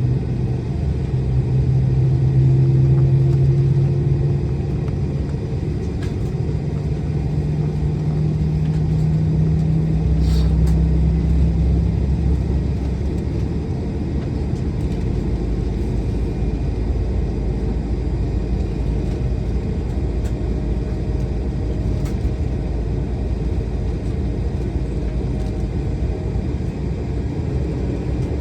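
Steady low rumble and hum inside the cabin of an Embraer E175 on the ground. A low tone drifts slightly upward, and about ten seconds in it gives way to a deeper, even rumble.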